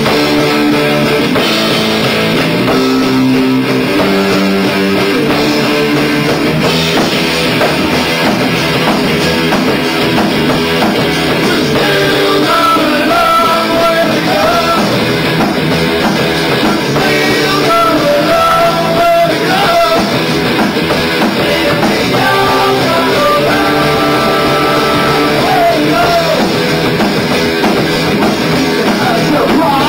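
A rock trio playing live: distorted electric guitar, bass guitar and drum kit, with a male lead vocal sung over the band.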